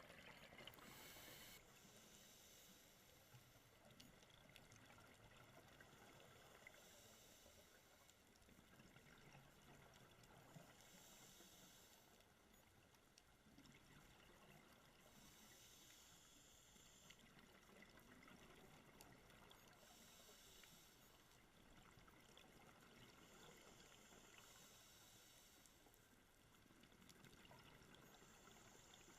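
Faint underwater sound of scuba diving heard through a camera housing: a diver's regulator breathing, with a hiss of bubbles swelling every four to five seconds.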